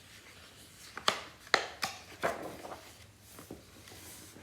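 A hardcover picture book being handled as a page is turned: a quick run of about five light taps and knocks in just over a second, then one faint knock.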